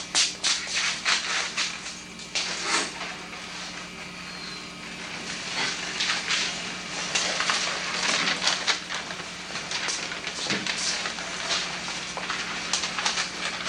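Scattered hand claps and knocks from a room of young children, coming in irregular clusters: about the first second and a half, again around six to nine seconds in, and near the end. A steady low hum runs underneath.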